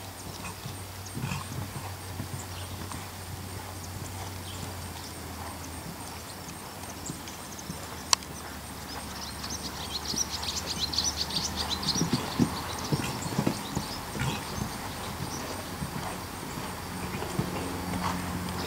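Horses cantering on a sand arena: dull, uneven hoofbeats, loudest about twelve to fourteen seconds in. There is a sharp click about eight seconds in and a flurry of high chirps around ten seconds in, over a steady low hum.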